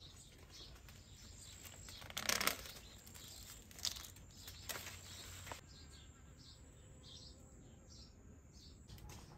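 Rustling and crackling of corn leaves and husk as a hand works an ear of corn off the stalk, loudest about two seconds in, followed by a few sharp clicks. In the second half, short high chirps repeat a little over twice a second.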